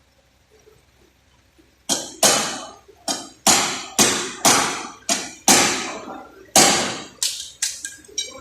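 A hammer striking sheet-metal bodywork, about a dozen sharp, ringing blows at roughly two a second, starting about two seconds in.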